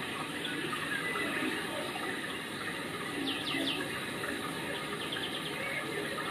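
Steady rush of running water, with a few short, quick bird chirps about halfway through.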